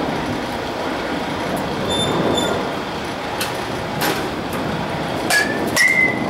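A slow-pitch softball bat hits a ball near the end with a sharp clack and a short ringing ping. A similar clack and ring comes half a second before it, and a few lighter clacks come a second or two earlier, all over a steady rumbling noise.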